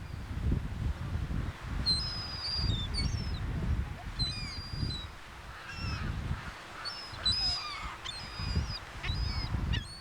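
A flock of seagulls calling: many short, high, overlapping cries, several dropping in pitch, over a low uneven rumble.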